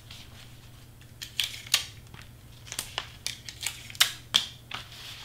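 Hands handling cardstock and a roll of double-sided tape: a string of about ten short, sharp clicks and crackles, the loudest around four seconds in.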